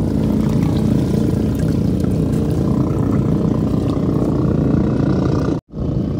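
Small boat engine running steadily at sea, a little higher-pitched from about the middle on, cutting out for an instant near the end.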